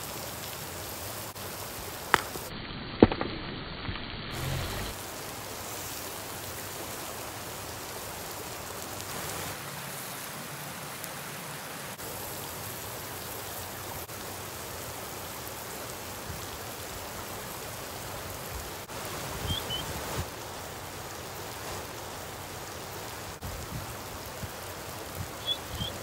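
Steady rushing of flowing water from a stream or waterfall, with a few sharp clicks.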